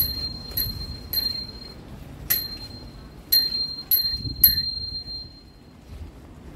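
Small metallic dings, struck seven times at uneven gaps of about half a second to a second. Each strike leaves a high ringing tone that carries on, and the ringing dies away about five and a half seconds in.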